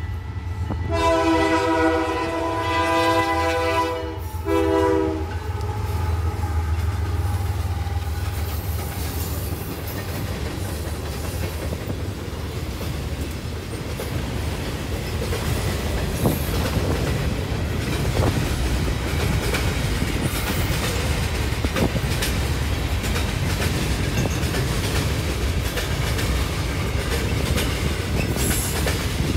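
A Canadian Pacific freight train's diesel locomotive horn sounds a chord for about three seconds, then once more briefly. The diesel locomotives then pass, followed by a long line of tank cars rolling by with steady wheel noise and clicking over the rail joints.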